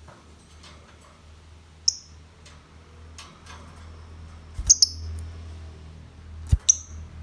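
Lovebird giving short, shrill chirps: one about two seconds in, two in quick succession a little past halfway, and one near the end. A low steady hum runs underneath, with a dull thump just before the later chirps.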